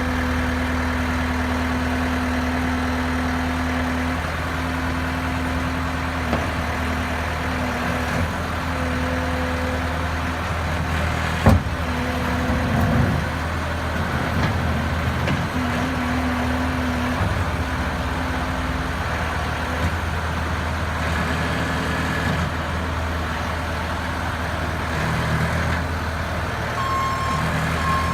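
Bobcat S650 skid steer's diesel engine running steadily, with a single sharp knock about eleven seconds in and a brief beep near the end.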